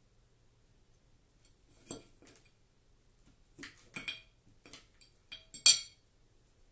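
Cutlery clinking and scraping against a plate in a string of short knocks, the sharpest near the end, as cooked chicken is worked off the bone.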